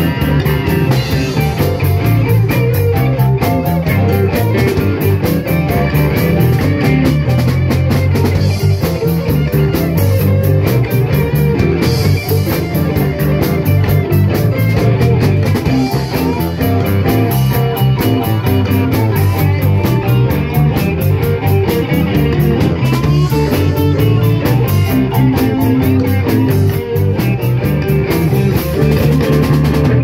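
Live rock band playing a song, with guitars and a drum kit.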